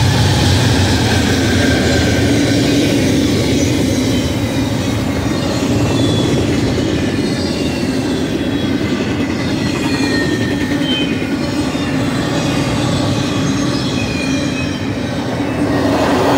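A BNSF double-stack intermodal freight passing at speed: steady rumble of steel wheels on rail as the loaded well cars roll by, with brief high wheel squeals. Near the start, the diesel engines of the last trailing locomotives, a GE ES44C4 and a Dash-9, are heard fading as they pass.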